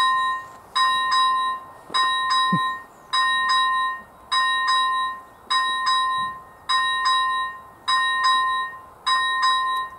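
First-generation electronic warning bell of a Czech AŽD 71 level crossing ringing, about one electronic ding a second, each a clear tone that fades before the next. It signals that a train is approaching the crossing.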